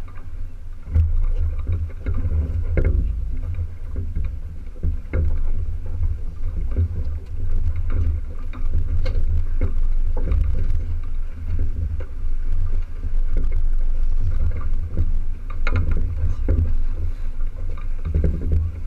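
Wind buffeting the microphone aboard a small sailboat, a heavy low rumble that rises and falls, over water washing against the hull, with a few short knocks.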